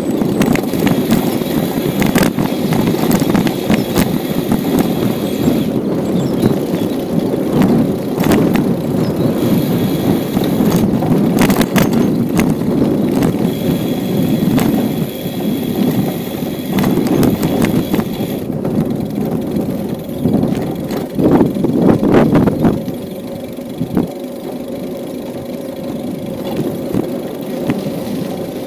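Bicycle riding over a dirt path: steady tyre rumble with frequent rattles and knocks from the bike jolting over bumps. About 23 seconds in it turns quieter and smoother as the tyres reach asphalt.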